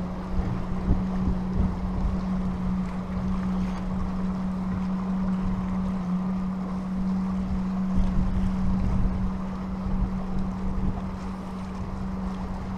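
Wind buffeting the microphone in gusts, with a steady low hum held on one pitch throughout.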